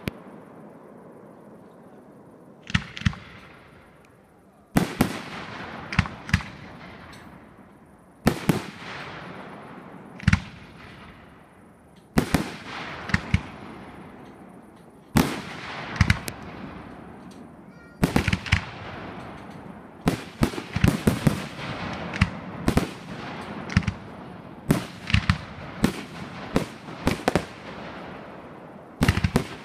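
Aerial fireworks shells bursting with sharp bangs, each trailing off slowly. The bangs come a couple of seconds apart at first, then quicker and in clusters of several in the second half.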